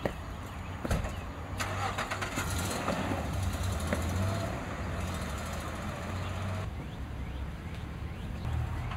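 Car engine running with a steady low hum.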